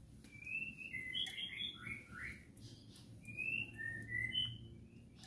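Small birds chirping: a quick run of short, faint chirps, several a second, with a brief lull about halfway through.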